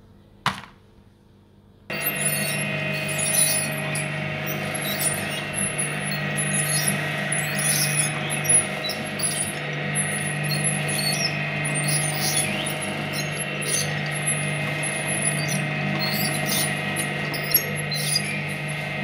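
A sharp click, then just under two seconds in a twin-shaft shredder starts abruptly and runs steadily with a low hum and a whine. Irregular crackling and squeaking come through as its blades crush soft marshmallow-topped cookies.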